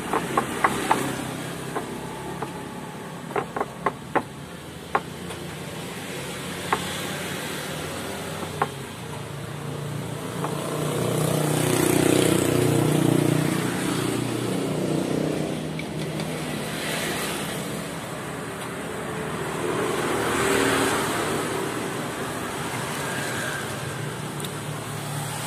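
Sharp clicks of a knife tapping a plate as food is cut by hand, about a dozen in the first nine seconds. Road traffic runs under it and swells twice as vehicles pass, loudest near the middle.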